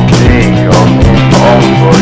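Background rock song with a steady beat, guitar and a sung vocal line.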